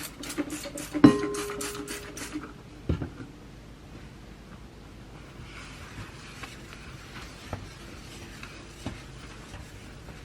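A utensil clicking quickly and repeatedly against a bowl or dish, as in stirring or whisking, with a loud ringing clink about a second in and a single knock near three seconds. After that, a faint hiss with a few light taps.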